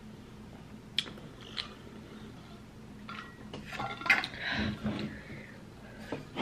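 Light clicks, then a couple of seconds of knocking and rattling as a metal insulated water bottle with a straw lid is picked up and handled, with the loudest knock about four seconds in.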